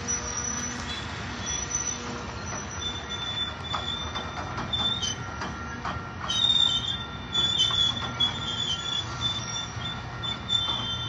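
Grain train's hopper cars rolling past with a steady rumble, wheels clicking over the rail joints, and high-pitched wheel squeal that comes and goes, louder from about halfway through.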